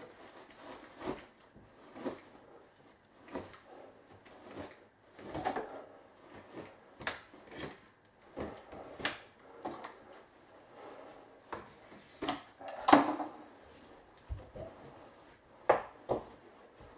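Gloved hands pushing and tucking mineral-wool loft insulation down between timber floor joists. It is heard as a run of short, irregular rustles, scrapes and knocks, about one a second, with the loudest knock about 13 seconds in.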